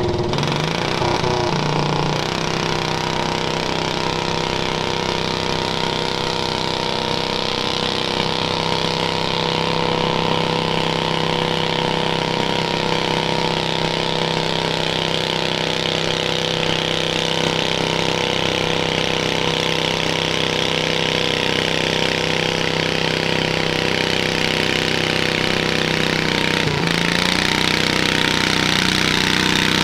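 Garden tractor engine running hard under load while pulling a weighted sled, rear tires spinning in the dirt. The engine note steps up about two seconds in, holds steady, and dips briefly near the end.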